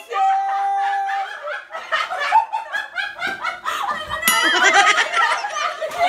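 A group of people laughing, snickering and giggling, with high squealing laughs from about four seconds in. A steady held tone comes first, for about a second.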